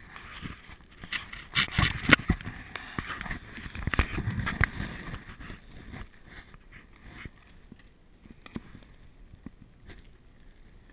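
Knocks and scraping from a handheld action camera being jostled as snowboarders tumble on snow beside it. The knocks are loudest around two seconds in and again around four seconds in, then thin out to scattered light knocks.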